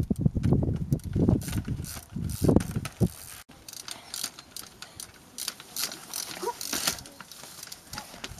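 A trials bike hopping across boulders: a run of loud thuds as its tyres land on the rock over the first three seconds, then a quieter stretch of fast, irregular clicking from the bike's freewheel ratchet.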